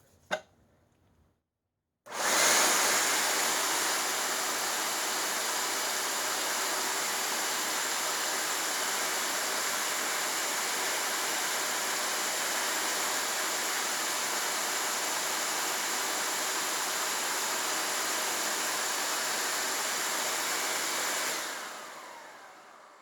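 Vacuum cleaner motor switched on, with a brief surge as it starts about two seconds in. It runs steadily with a full, even whoosh of air until it is switched off near the end and winds down.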